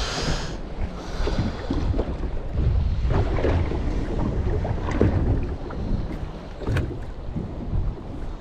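Wind buffeting the microphone over water lapping against a boat's hull, with a brief hiss near the start and a few sharp knocks later on.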